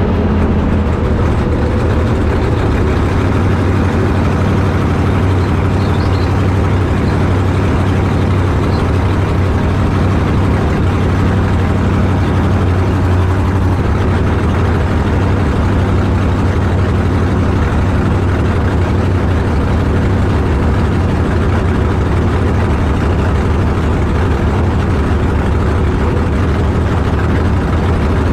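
A drag car's engine idling steadily for the whole stretch, with a deep, even, low note and no revving.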